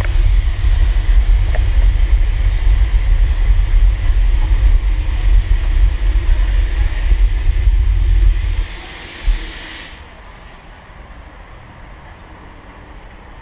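Wind buffeting the microphone over a steady rushing hiss, which drops away suddenly about nine seconds in, leaving a much quieter rumble.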